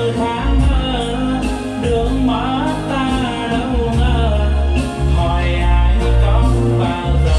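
A song with singing and a strong bass line, played loudly through a TV soundbar that is being tested.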